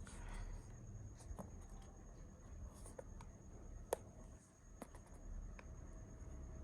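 Faint handling of a sealed cardboard product box: light scratching and rubbing with scattered small clicks, and one sharper click about four seconds in, as the packaging is worked open.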